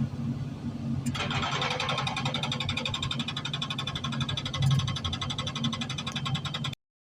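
Excavator engine running, and about a second in its hydraulic breaker hammer starts hammering on stone in a fast, even rattle of blows. The sound cuts off abruptly just before the end.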